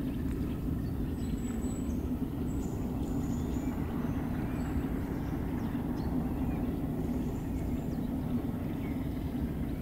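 Steady low rumble of outdoor background noise, with a few faint, short, high-pitched chirps over the first half.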